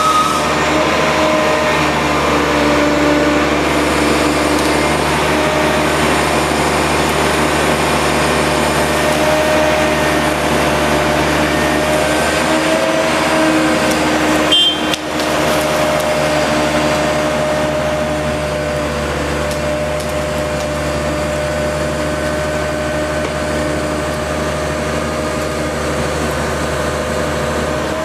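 DOLL Tree Trimmer truck-mounted tree-felling crane running: a steady engine drone with a steady whine over it, briefly broken about halfway through.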